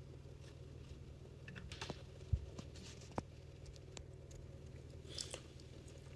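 Faint, scattered clicks and taps over a low steady hum.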